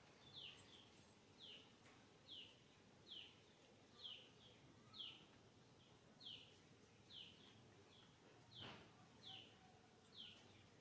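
A bird calling faintly in the background, a short falling chirp repeated about once a second.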